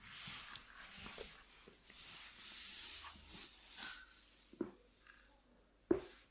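Soft rubbing and breathy hissing during a chiropractic neck and back treatment, then two short sharp cracks near the end, the second louder: joints popping under the adjustment.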